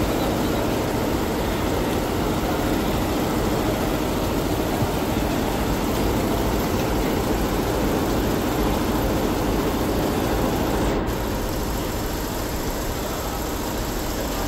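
Multi-head computerized embroidery machine running, a steady mechanical whirr of many stitching heads working at once. It drops a little in level about eleven seconds in.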